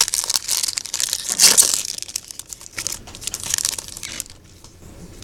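Foil wrapper of a Yu-Gi-Oh! Duel Power booster pack crinkling as it is torn open, in a few rustling spells with the loudest about a second and a half in.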